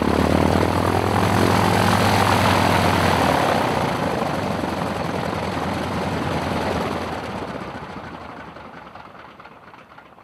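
Spartan 7W Executive's Pratt & Whitney R-985 Wasp Junior radial engine running and then shut down. Its steady note breaks up about three and a half seconds in, and the sound fades away as the propeller spins down.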